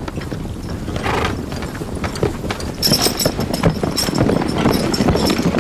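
Horses galloping: a fast, irregular clatter of hooves on the ground, with a high steady tone joining in about three seconds in.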